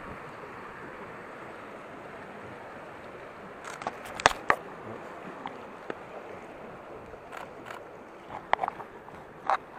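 Steady rush of fast river water past a boat, with several sharp clicks and knocks close to the microphone as a camera is handled against it: the loudest pair a little over four seconds in, more near the end.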